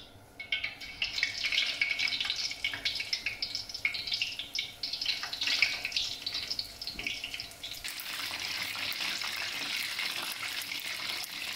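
Marinated chicken wings deep-frying in hot oil in a steel wok: a sizzle that starts suddenly as they go in, crackling unevenly at first, then settling into an even, steady sizzle from about eight seconds in.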